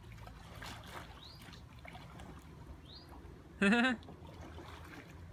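Kayak paddle dipping into calm river water and dripping, with faint rising bird chirps. A short, loud voiced call cuts in about three and a half seconds in.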